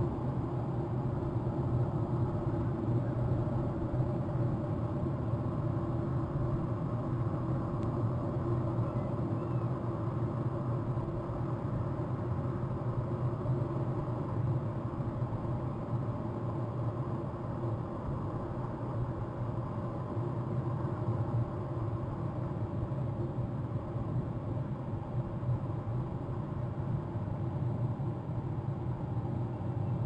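Steady low rumble with a hiss above it, unchanging throughout; no bird calls stand out.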